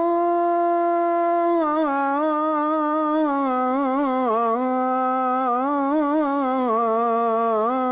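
A male muezzin's voice drawing out one long sung phrase of the Fajr call to prayer (adhan), the closing 'Allahu akbar'. He holds one steady note for about a second and a half, then winds down in wavering melismatic turns.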